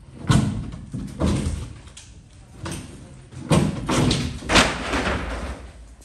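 Irregular heavy thuds and knocks of construction work, about six in all, each ringing on briefly.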